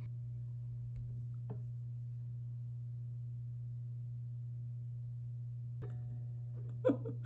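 Quiet room tone dominated by a steady low hum, with a faint click about a second and a half in and a brief breath-like sound near the end.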